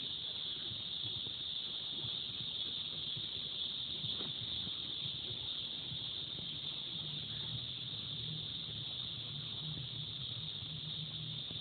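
Steady high-pitched insect chorus, like crickets, with a low hum underneath that grows louder in the second half.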